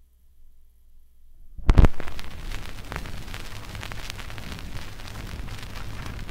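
Stylus playing a 1940s Wilcox-Gay Recordio home-recording disc at 78 rpm: a faint low hum, then a loud thump nearly two seconds in, followed by steady crackle and hiss of the disc's surface noise.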